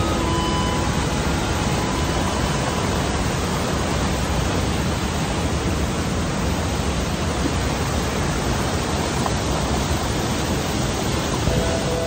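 Steady rush of whitewater on a mountain creek tumbling over a rocky cascade, with music fading out in the first second and coming back in near the end.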